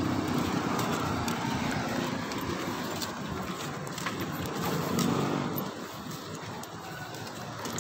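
Street traffic: a passing motor vehicle's engine fades away, and another swells briefly about five seconds in.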